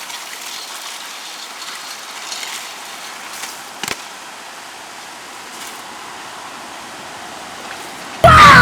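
River water rushing, a steady hiss, with a single sharp click about four seconds in. Loud electric-guitar rock music cuts in suddenly near the end.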